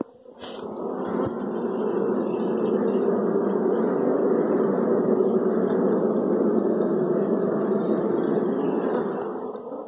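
Wild honeybee colony buzzing close up: a loud, dense, steady hum of many bees.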